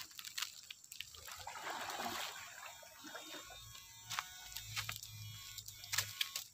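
Shallow river water splashing and sloshing around a wader's legs and bamboo electrofishing poles as he probes under palm fronds, with a few short sharp clicks from the poles.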